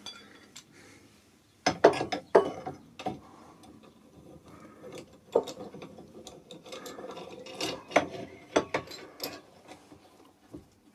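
Steel G-clamps being fitted to a pillar drill's cast-iron table to hold a machine vice: metal knocks and clunks, loudest about two seconds in, then a run of small clicks and scraping as the clamp screws are wound in.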